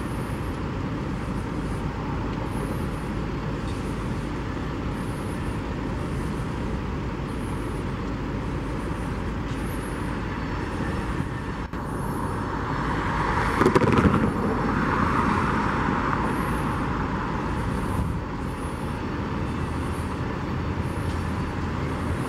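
Steady outdoor vehicle noise, with something louder swelling up and fading away a little past halfway.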